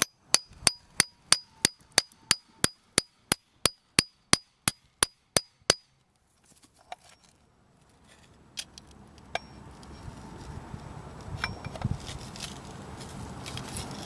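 A hammer tapping on a metal part of an old watt-hour meter, trying to knock it loose: about eighteen even blows, three a second, each with a bright metallic ring. The blows stop about six seconds in, followed by a few light clicks.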